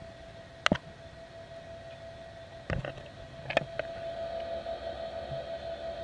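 A steady, even-pitched hum, broken by a few sharp knocks: one about a second in, then a short cluster and two more around three to four seconds in.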